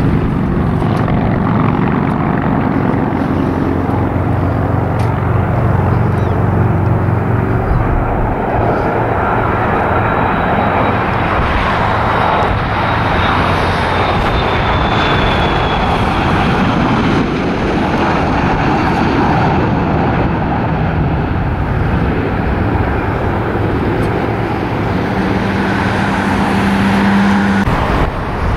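McDonnell Douglas MD-80 jet airliner on final approach with its landing gear down, its rear-mounted Pratt & Whitney JT8D turbofans making a loud, steady rush as it passes low. About halfway through, a high engine whine falls slowly in pitch as the jet goes by.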